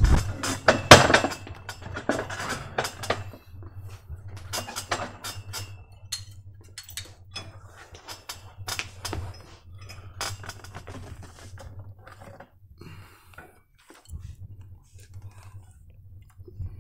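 Repeated metallic clinks and knocks from a gym cable machine's weight stack and block during an arm-wrestling wrist exercise, loudest in the first second or so, with music playing underneath.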